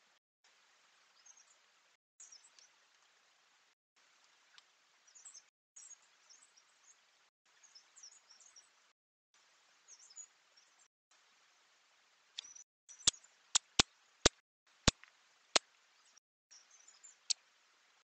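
Faint woodland hiss broken by short dropouts, with scattered high bird chirps, and near the end a quick run of six sharp taps from birds pecking at a plastic seed dish.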